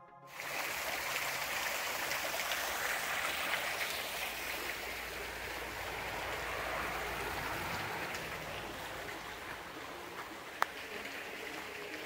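Small waterfall splashing and running steadily over rocks, easing off slightly later on. A single sharp click sounds near the end.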